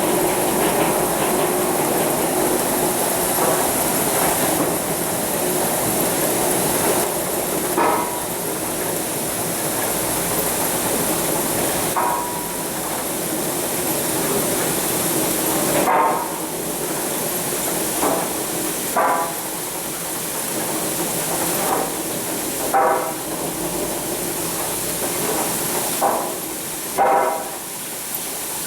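Old sawmill machinery running with a steady mechanical rush and hiss, broken by about nine sharp knocks or clanks that ring briefly, spaced a second or more apart through the second half.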